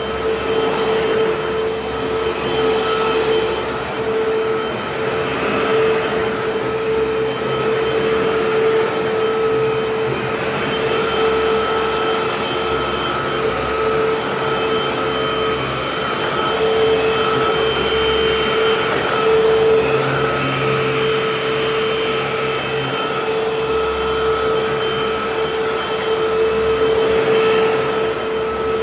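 Vacuum cleaner running steadily on a rug, a constant motor whine over the rush of air, with only small rises and falls in level.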